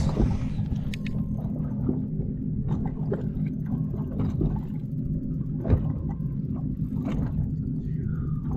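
Bass boat's outboard motor running with a steady low hum, with a few faint knocks over it.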